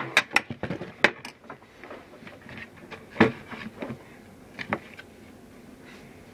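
Hand tools and skateboard hardware being handled, clicking and knocking: a quick cluster of sharp clicks in the first second or so, a loud knock about three seconds in, and two smaller knocks near five seconds.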